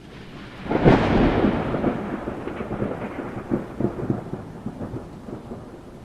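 A thunderclap about a second in, followed by crackling, rolling thunder that slowly fades over the hiss of rain.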